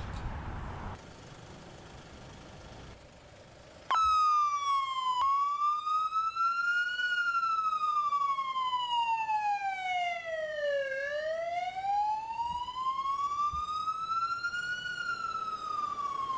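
An ambulance siren starts abruptly about four seconds in, after low background noise, and runs as a slow wail that rises and falls over several seconds at a time.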